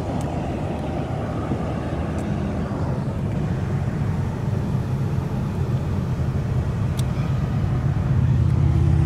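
Low, steady rumble of passing road traffic and an engine running nearby. Near the end, a louder, deeper rumble comes in as a touring motorcycle goes by.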